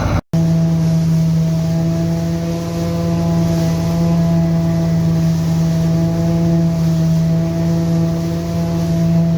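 Tractor and trailed Dania D5500 forage harvester running steadily under power, a constant hum that holds one pitch. The sound cuts out for a split second just after the start.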